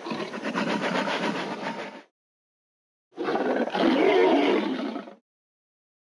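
Two animated-dinosaur roar sound effects. Each is a rough roar about two seconds long, with a second of dead silence between them, and the second roar is louder.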